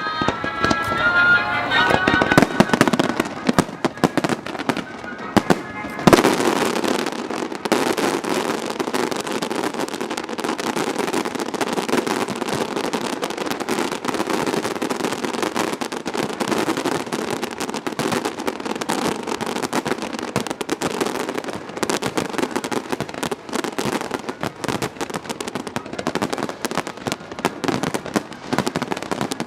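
Fireworks going off in a dense, continuous crackle of many rapid bursts, with a single louder bang about six seconds in.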